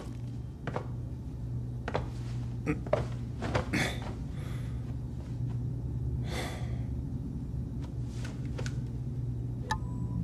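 Steady low hum of a spaceship interior's ambience on a film soundtrack, with scattered soft clicks and a couple of brief rustling swishes.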